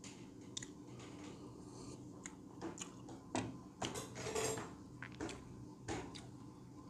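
Faint tableware and drinking sounds: scattered soft clicks, a light knock as a ceramic mug is set down on the table about three and a half seconds in, and a brief breathy sound just after.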